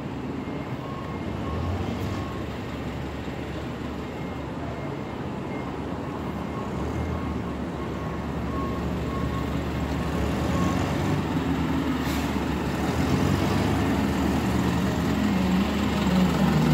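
Steady low rumble of an idling truck engine, growing louder toward the end. A faint, evenly repeated beeping runs through the first two-thirds.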